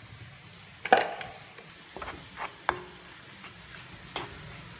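A wooden spatula stirring dry coriander and chilli powder as it dry-roasts in a cast-iron pan: a few scattered scrapes and taps against the pan, the loudest about a second in.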